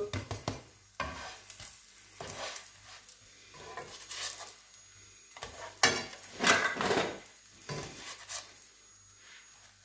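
A spatula scraping and sliding under an egg-coated toast in a nonstick frying pan, several short strokes with small knocks, the loudest about six to seven seconds in. The egg sizzles softly as it fries.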